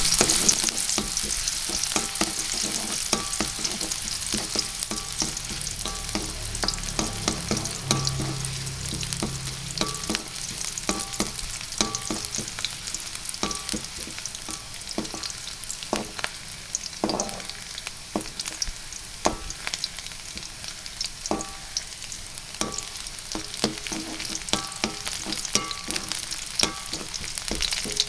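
Chili sambal frying in hot oil in a pan: continuous bubbling sizzle of the oil with dense crackling and frequent sharp pops and clicks from the chilies and spices.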